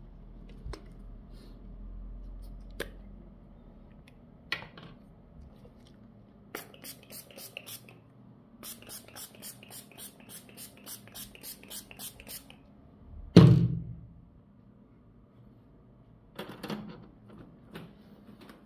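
A handheld pump spray bottle of LCD screen cleaner sprayed at a TV screen in rapid, short hissing squirts, about four to six a second, in two runs. About two-thirds of the way in comes one loud thump.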